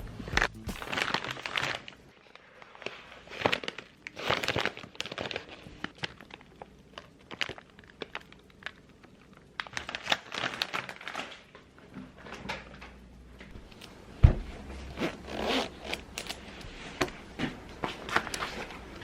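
Close-up rustling, crinkling and clicking of things being handled, in short irregular bursts with quieter gaps between.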